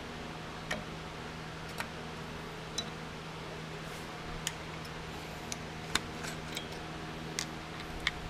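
About ten sharp, light metallic clicks and clinks, spaced irregularly, from hand tools (a T-handle tap wrench and drill bits) being handled against a steel milling-machine vise, over a steady low hum.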